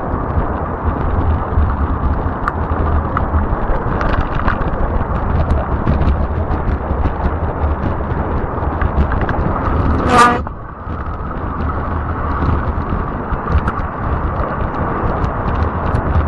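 Fat-tire e-bike riding on a paved path: a steady rumble of wind and tyre noise with scattered small ticks over bumps. About ten seconds in, a brief horn-like toot sounds once.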